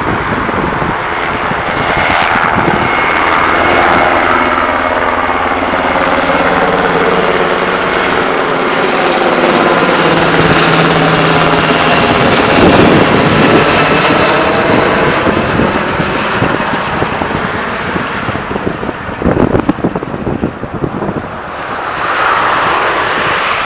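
Sikorsky UH-60 Black Hawk helicopter flying low overhead: the loud beat of its rotor blades over the whine of its twin turboshaft engines, the whine sliding down in pitch after it passes over about halfway through. Near the end the rotor beat turns choppy as it moves away.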